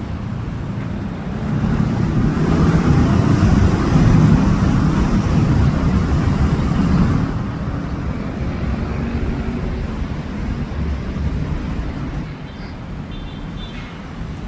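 Road traffic noise: a steady rumble of vehicles, with one passing vehicle growing louder in the first few seconds and fading away about halfway through.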